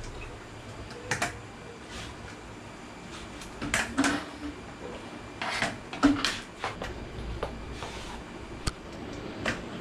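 Irregular knocks and clatters of a plastic laundry basin full of clothes and hangers being handled and lifted, with crutches set down on a tiled floor. The loudest knocks come about four and six seconds in.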